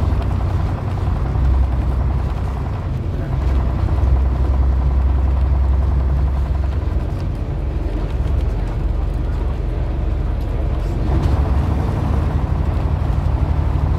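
Vintage bus engine running under way at steady road speed, a deep low drone with wind and road noise. The engine note shifts about three seconds in and again near eleven seconds.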